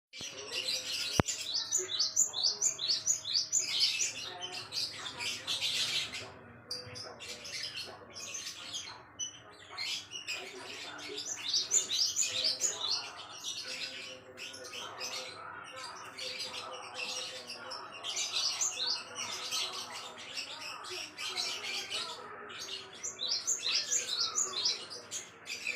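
Cinereous tit (gelatik batu) calling and singing in rapid runs of high, sharp chirps, in bursts with short pauses between. A single sharp click about a second in.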